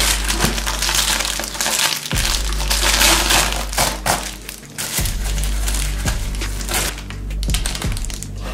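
Plastic bubble mailer being torn open and crumpled by hand: a continuous, irregular run of crinkling, crackling and tearing.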